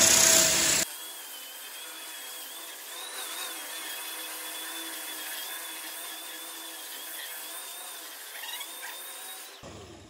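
Hand-held floor edge sander running against solid-wood parquet, grinding down a deep burn mark. Loud for the first second, then it drops abruptly to a much quieter, thinner steady sound with a faint wavering whine.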